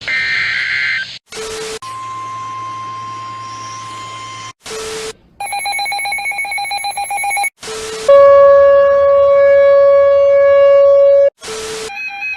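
A run of electronic alert tones: a steady mid-pitched tone, a rapidly pulsing multi-pitch beep, then a louder steady lower tone. Each is cut off by a short burst of static.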